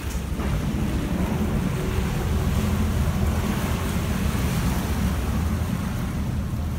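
Motorboat running steadily under way: a low engine rumble with water rushing and splashing along the hull, and wind on the microphone.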